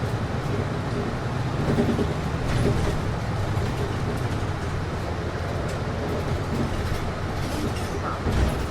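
Steady whoosh of a city bus's air conditioning over the low rumble of the bus's engine, heard inside the passenger cabin, with a brief low thump near the end.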